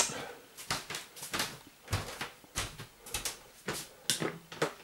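Irregular rustles and light knocks close to the microphone: a person handling clothes while pulling on a pair of trousers.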